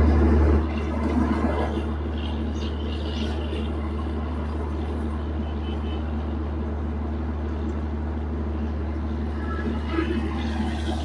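Steady low hum of a running vehicle engine. It is louder for the first half second, then holds even.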